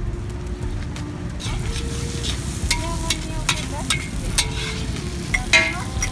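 A metal spatula stirring and scraping shredded cabbage and chili paste around a wok, over a steady frying sizzle. Sharp scrapes and clinks of the spatula on the pan come repeatedly from about a second and a half in.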